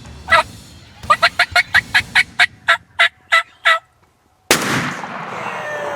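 A wild turkey calling: one note, then a run of about a dozen quick, evenly spaced notes that fade out. After a short silence comes one sudden loud blast that dies away slowly, a shotgun shot at the turkey.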